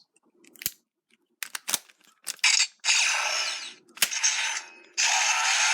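Memorial Edition Gokaiger toy weapon being worked with a Ranger key: several sharp plastic clicks from the key and mechanism. The toy's speaker then plays long, noisy blaster sound effects, starting about two and a half seconds in and again near the end.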